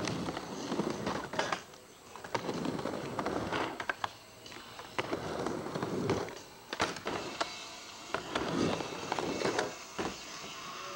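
Skateboard wheels rolling on a plywood mini ramp, the rumble swelling and fading every couple of seconds as the rider goes back and forth, with several sharp clacks of the board and trucks.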